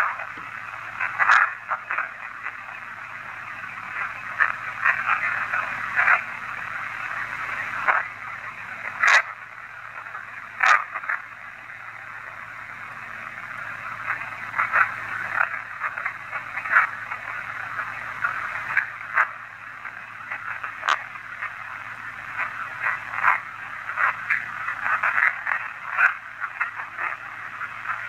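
Playback of a ghost-box session through a small speaker: a continuous radio-like static crackle held in a narrow middle band, broken by sharp clicks every second or so. The investigators take fragments in it for spirit voices, captioned 'You know' and 'Hey, move on'.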